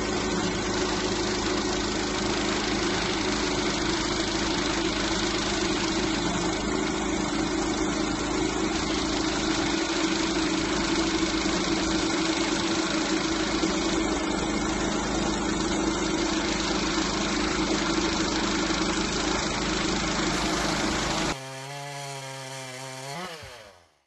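Woodland Mills HM126 portable bandsaw mill running steadily, its engine driving the band blade through a squared log. About 21 seconds in it cuts off and gives way to a short musical sting that fades out.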